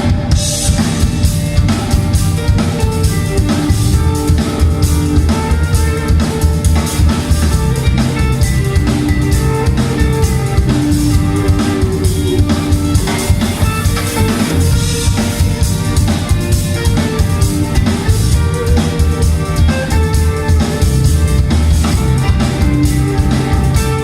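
A band playing live: a drum kit keeping a steady beat under guitar, kicking in at full volume right at the start.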